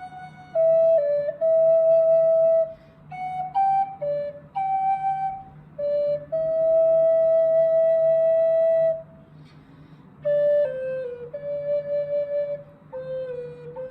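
A flute playing a slow solo melody, phrases of short notes broken by pauses, with one long held note about halfway through.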